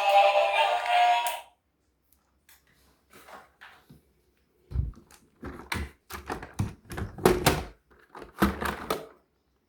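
Background music cuts off about a second and a half in. After a short lull, a run of irregular sharp clicks and knocks, a dozen or so over about four seconds, as hard objects are handled.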